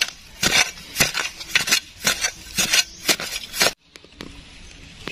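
A metal digging tool striking and scraping hard, gritty soil in quick repeated strokes, about three a second. It stops abruptly near the end, leaving only faint ticks.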